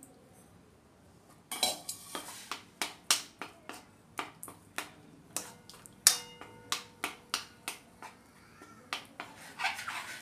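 A steel spoon clinking against the side of a stainless-steel kadhai while stirring white sauce, a sharp knock about two or three times a second after a quiet start. One harder knock about six seconds in leaves the pan ringing briefly.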